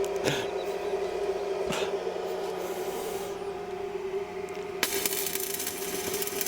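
Stick arc welder on rebar: the arc crackles and sizzles over a steady electrical hum. Near the end a fresh, denser crackle starts suddenly.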